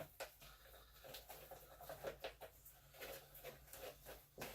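Faint scratching and clicking of a utensil stirring slime in a bowl as borax activator is mixed into the glue.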